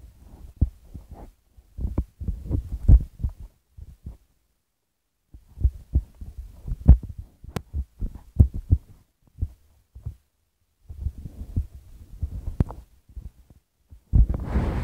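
Microphone handling noise: irregular low thumps and rubbing in clusters with short pauses, a few sharp clicks, and a louder burst of rubbing near the end.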